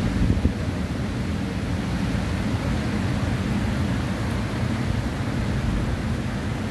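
Steady rumbling noise of wind on the microphone and surf, with a brief louder moment about half a second in.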